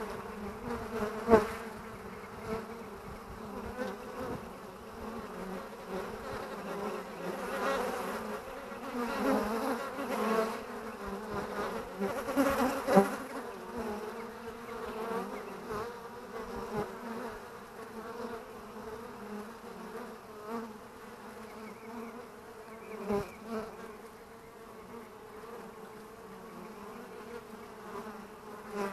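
Honeybees buzzing at a hive entrance: a steady hum of many wings as foragers fly in and out. It swells louder when bees pass close, most of all about a third of the way in. There are a couple of sharp taps, about a second in and near the middle.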